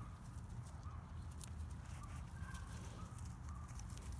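Chickens giving short, soft peeping calls again and again, with light rustling of dry leaves and a low steady rumble.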